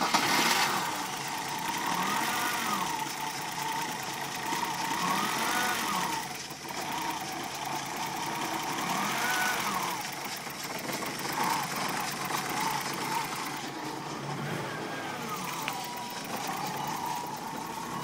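BMW E30 325e's 2.7-litre M20B27 'eta' inline-six idling roughly, its pitch rising and falling in slow surges about every three seconds. The rough idle persists with a newly fitted oxygen sensor.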